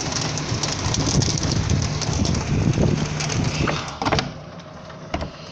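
Strong wind and heavy rain: a loud rushing noise that cuts off sharply with a knock about four seconds in, leaving a quieter hiss.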